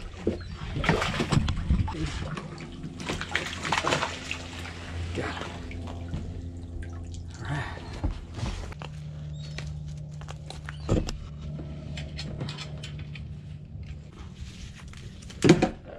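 Water splashing and sloshing as a hooked fish is landed in a landing net beside a kayak, with scattered knocks and rustles of handling and a sharp knock near the end.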